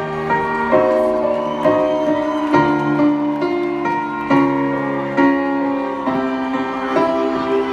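Live band music carried by held keyboard chords that change about once a second, with no singing.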